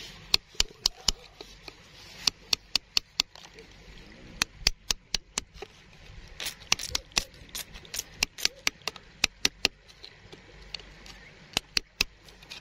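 A digging tool tapping and scraping at a stone and the gravel around it: a steady run of sharp clicks, several a second, over a faint gritty scrape.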